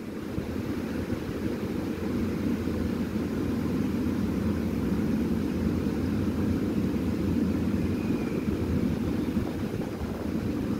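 EP07 electric locomotive hauling a long passenger train at slow speed: a steady low rumble from the locomotive and the wheels on the rails, getting a little louder about two seconds in.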